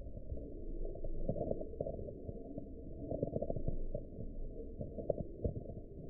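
A lop-eared rabbit chewing a cabbage leaf, played back in slow motion so the chewing comes out as a deep, drawn-out crunching rumble with irregular louder crunches, a cluster about three seconds in and two more near the end.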